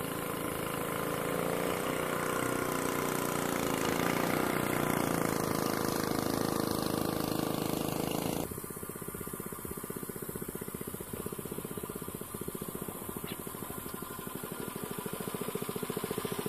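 Swamp Runner Mini longtail mudmotor with a 99cc Predator single-cylinder four-stroke engine running on the water, its pitch rising a little under throttle, then dropping abruptly about eight seconds in to a slow, even putter of separate firing strokes that grows slightly louder near the end.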